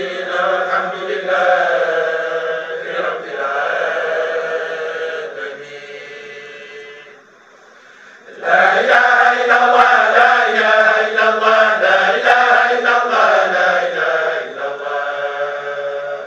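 Women's voices chanting Islamic dhikr in long, drawn-out melodic phrases. The chant fades away about six seconds in, then starts up again loudly about two seconds later.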